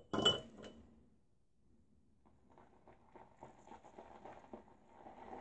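A sharp clink with a brief ring, then, from about two seconds in, the wet, crackling swish of a silvertip badger shaving brush whipping soap into lather in a bowl, growing louder near the end.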